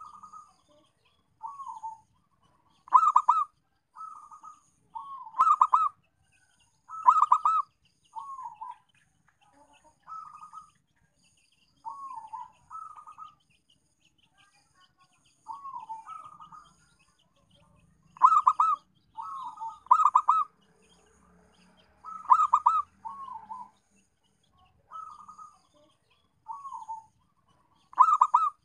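Zebra dove (perkutut) cooing: a string of short coos a second or two apart, some soft and some much louder with a rapid stuttering roll. Faint high chirps sound behind them.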